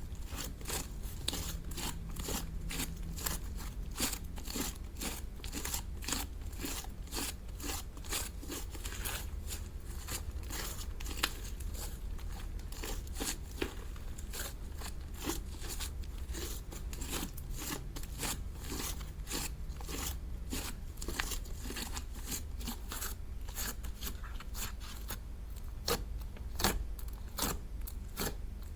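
Slime being pressed and stretched by hand, giving a dense run of small sticky clicks and crackles, several a second.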